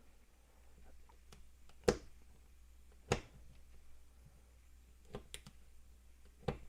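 A handful of sharp, separate clicks and knocks a second or so apart, the loudest about three seconds in, from small plastic and metal parts being worked by hand.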